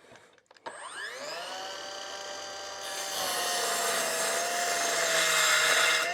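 Power drill motor spinning up and driving a screw into wood. It holds a steady whine, grows louder and rougher under load from about halfway through, then winds down.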